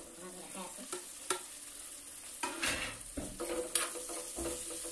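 Potato pieces frying in a steel kadai on a gas burner, sizzling steadily, while a metal ladle stirs and scrapes them, knocking against the pan several times.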